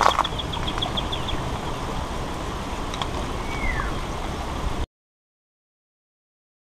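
Outdoor riverside ambience on an action camera: wind noise on the microphone and a brief rustle of leaves and handling at the start, a quick run of high bird chirps in the first second and a half, and a single falling whistle a little after three seconds. About five seconds in, the sound cuts off abruptly into dead silence as the camera's recording ends.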